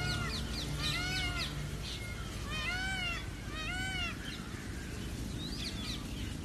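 Short animal calls, each a clear tone with overtones that rises and then falls. Four stronger ones come in the first four seconds, and a few fainter ones follow.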